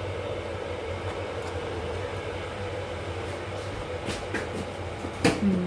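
Stainless-steel electric kettle at the boil, a steady rumbling hiss, with a sharp click a little after five seconds in.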